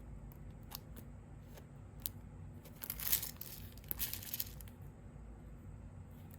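Plastic packaging crinkling as it is handled, in two short bursts about three and four seconds in, with light clicks and taps around them.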